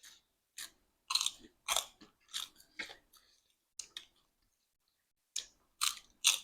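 A person chewing food close to the microphone, about two sharp wet chews a second, with a short pause about four seconds in before the chewing resumes.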